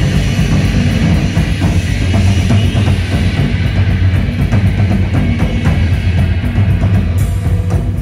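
Loud live band music: a drum kit played hard over keyboards and electronics, with a heavy, dense low end.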